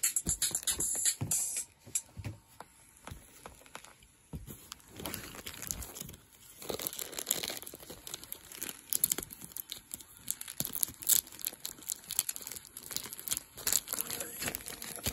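Clear plastic comic-book wrapping crinkling and rustling as a stack of comics is handled, in many quick irregular crackles, with music in the background.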